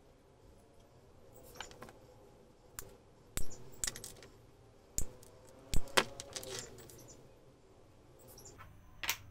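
A series of sharp wooden clicks and knocks as thin wooden pins glued into small wooden wheel hubs are snapped off, and the loose pieces clatter on a cutting mat. The clicks come irregularly. The loudest come about three and a half and six seconds in, and a few more come near the end.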